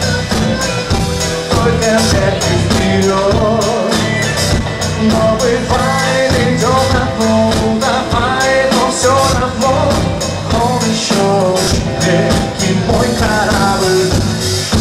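Pop-rock song played live: electric bass and drums keeping a steady beat, with a male voice singing a melody over it from about six seconds in and again near the end.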